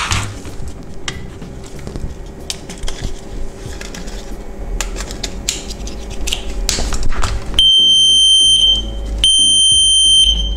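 Warning buzzer of a VW T4 / Golf 4 instrument cluster sounding two steady, high, loud beeps about a second long each, near the end, as the cluster is powered up for its first test after the display swap. Before the beeps, scattered clicks and knocks of handling.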